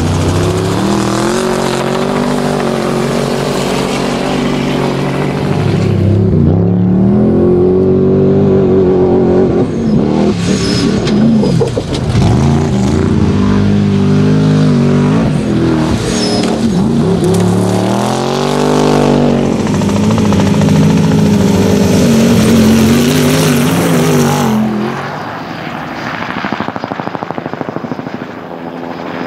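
Twin-turbo desert race truck's engine running hard at speed, its pitch rising and falling repeatedly as it revs, with one sweeping rise and fall a little past the middle. It drops quieter near the end.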